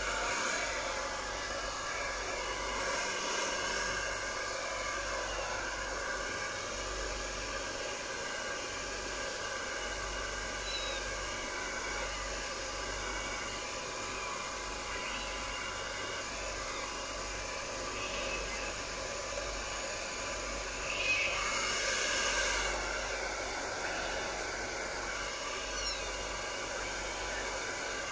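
Handheld hair dryer running steadily, blowing air onto a wet kitten's fur: a continuous whirring hiss, briefly louder about three-quarters of the way through.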